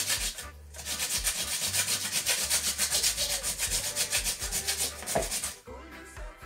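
Peeled raw potatoes being grated on a stainless steel box grater: quick, even scraping strokes, with a short break about half a second in, stopping shortly before the end.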